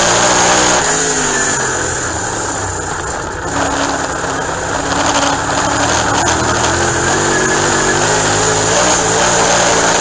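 Dirt-track race car's engine heard from inside the car at racing speed. The revs rise and fall with the throttle, dropping briefly about a third of the way in and then climbing again.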